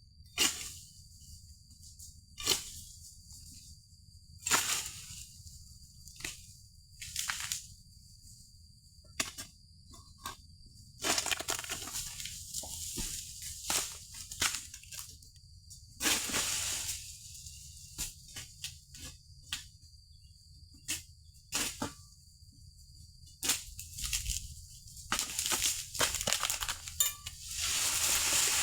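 Oil palm fronds being cut with an egrek pole sickle: repeated bursts of crackling, rustling leaves and brittle cracks as fronds are hacked and drop, with short quiet pauses between strokes. A faint steady high-pitched tone sits behind them for much of the time.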